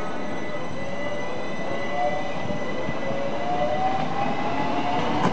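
Class 466 and Class 465 Networker electric multiple units accelerating away from a station, their traction motors whining in several tones that rise slowly in pitch over the steady running noise of the train on the rails.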